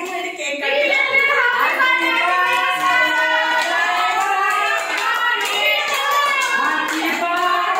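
Group of people singing a birthday song together, with hand-clapping along.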